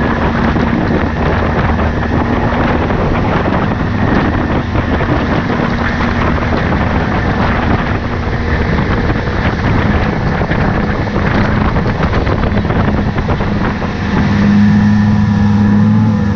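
Evinrude outboard motor running steadily at speed as the boat planes, with the rush of wake spray and wind on the microphone; the engine's hum stands out more clearly near the end.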